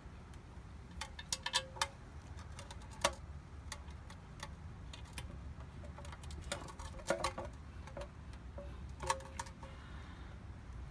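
Scattered metallic clicks and taps from handling the transmission oil pan, its new rubber gasket and its bolts, in small clusters over a low steady rumble.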